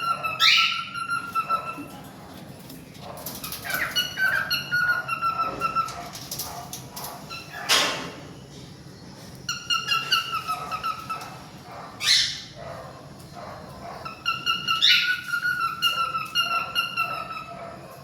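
Male heart-wing cockatiel whistling its song in four repeated phrases. Each phrase is made of steady whistled notes with quick upward glides. Two short harsh calls fall between the phrases, about eight and twelve seconds in.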